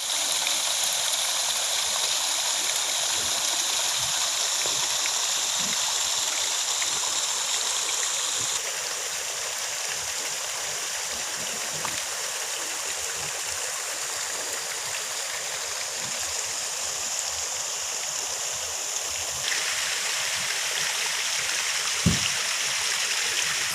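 Steady rush of flowing water, like a stream, whose sound shifts twice, with one short knock near the end.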